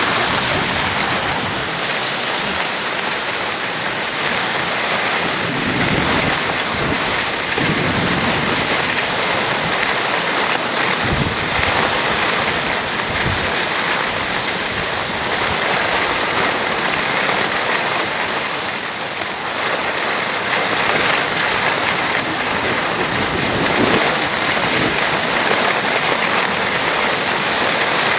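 Skis sliding and scraping on snow during a downhill run, a steady loud hiss, with wind rushing over the microphone in low gusts now and then.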